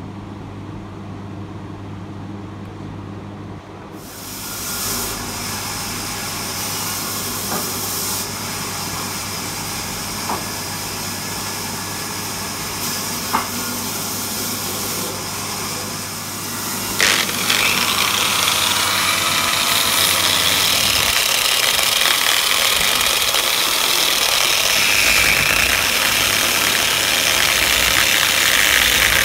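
Electric orbital sander running, starting about four seconds in. About seventeen seconds in it gets louder, with a wavering whine, as it sands across the face of a hardwood cutting board.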